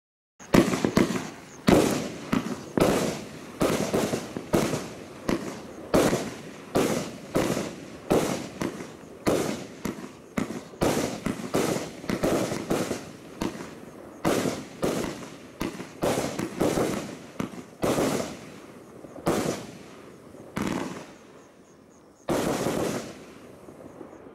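A 30-shot fan barrage firework cake firing its shots in quick succession, roughly two a second. The shots space out toward the end and stop about two seconds before the end.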